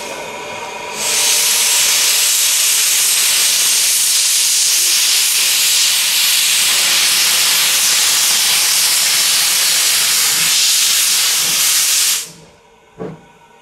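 Steam locomotive (Andrew Barclay saddle tank) blowing steam from its open cylinder drain cocks: a loud, steady hiss that starts about a second in and cuts off suddenly near the end, after the tail end of a whistle at the start.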